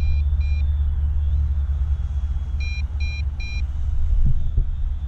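A drone remote controller's low-battery warning: short high beeps in threes, the last two of one set right at the start and a full set of three just under three seconds in. A steady low rumble runs underneath.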